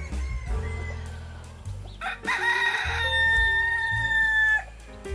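A single long animal call over background music: it begins rough about two seconds in, then holds a steady tone and cuts off sharply near the end.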